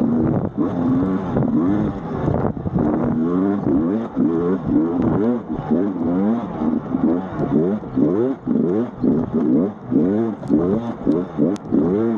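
2024 Sherco 300 SE-R Factory two-stroke enduro engine under hard riding, the throttle worked on and off so its pitch sweeps up and down repeatedly, about twice a second in the second half.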